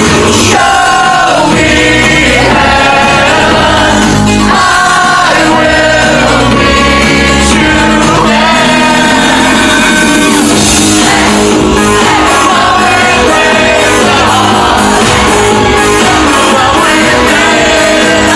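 Live synth-pop band performance, loud throughout: a male singer singing into a handheld microphone over synthesizers and a steady electronic beat.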